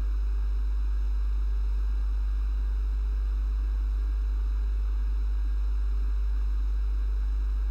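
A steady low electrical hum, like mains hum in the recording, with faint hiss over it. It stays even throughout, with no other events.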